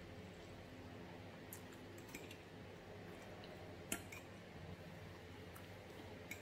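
A few faint clicks of a metal fork on a plate while rice is scooped up, the sharpest about four seconds in.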